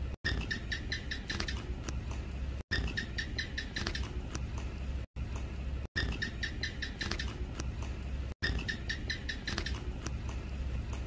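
House gecko (Hemidactylus) calling: runs of rapid, high chirps, each run about a second long, repeated four or five times with pauses between, over a low steady hum.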